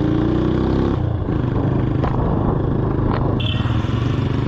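Custom-modified motorcycle engine running through a handmade silencer. Its pitch rises for about a second as it revs, then drops back to a steady run.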